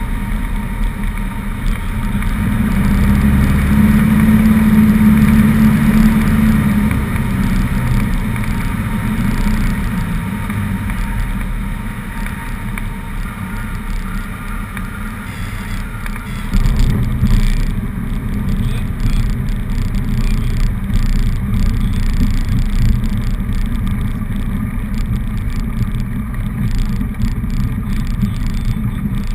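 Cessna 150's four-cylinder Continental O-200 engine running at low power, with wind rush over the airframe, heard from inside the cockpit through a landing approach, touchdown and rollout. The noise swells a few seconds in, eases around the middle, and jumps up again a little past halfway.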